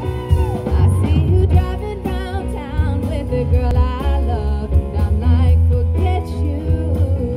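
Live band playing: a woman sings a melody with wavering held notes over piano, upright double bass and drum kit, with a strong bass line underneath.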